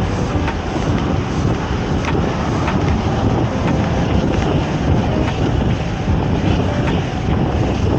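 Steady wind rumble on the microphone of a camera riding on a fixed-gear bicycle in motion, mixed with road and traffic noise, with a few faint clicks.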